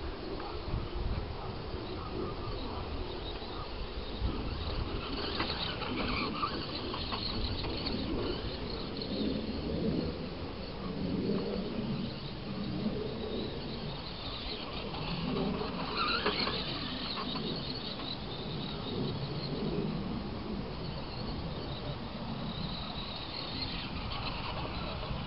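Wind rumbling on the microphone, with the electric motor of a Tamiya Blackfoot radio-controlled monster truck whining as it drives, rising more clearly twice, about five and fifteen seconds in.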